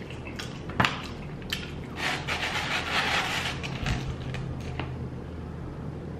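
Close-miked eating and food handling: a sharp click about a second in, then a wet, squishy burst lasting a second or so as a slice of pepperoni pizza is pushed into a cup of ranch dressing.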